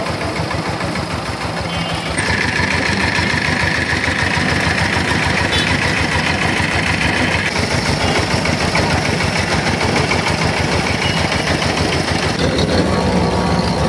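Motor-driven sugarcane juice roller press running steadily, its motor making a fast, even pulse. A higher-pitched noise joins about two seconds in and drops away after about seven seconds.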